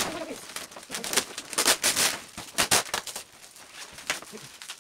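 Plastic bubble-wrap packaging rustling and crinkling in the hands as parcels are unwrapped, in irregular bursts of sharp crackles, densest about two seconds in.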